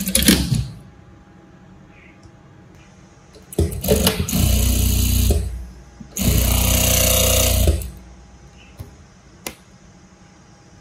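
Single-needle sewing machine stitching cloth in short runs. It stops just after the start, runs for about two seconds, pauses briefly, then runs again for about a second and a half. Two light clicks follow near the end.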